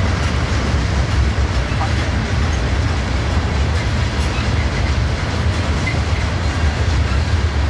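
Norfolk Southern freight train's open-top hopper cars rolling past on the rails: a steady rumble of wheels on track.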